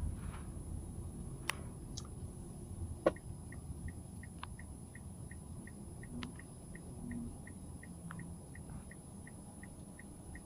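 Low rumble of a vehicle rolling slowly along a street, with a few sharp clicks and, from about three seconds in, a faint regular ticking about three times a second.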